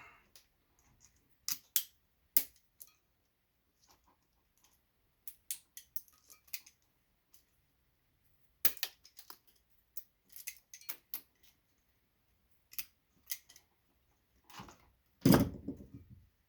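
Hand tools at work on Christmas light strands: irregular sharp clicks and snips of cutters and pliers squeezing the bulb sockets and cutting the wire, with small metal bits ticking as they land. A single louder knock about 15 seconds in.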